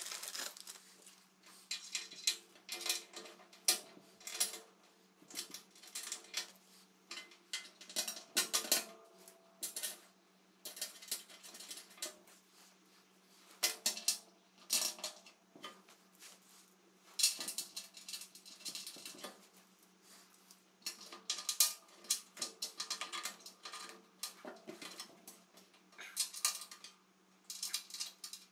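Irregular metallic clinks and rattles of bolts, washers and hand tools being handled as a rubber centre seal is bolted onto a snow plow blade's hinge, over a faint steady hum.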